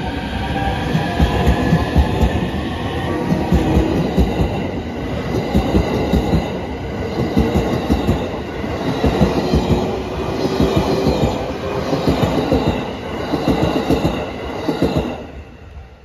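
JR East Shonan-coloured suburban electric train running past over a level crossing: steady wheel clatter over the rail joints, dropping away sharply near the end as the last car clears.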